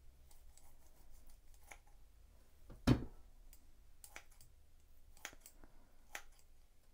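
Kitchen shears snipping cooked chicken and fish into a bowl: a scatter of short, sharp clicks, the loudest about three seconds in.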